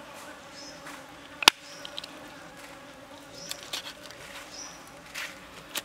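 A kitchen knife chopping raw frog meat on a wooden chopping block: one sharp knock of the blade on the wood about 1.5 s in and another near the end, with a few lighter taps between. A steady insect buzz runs underneath.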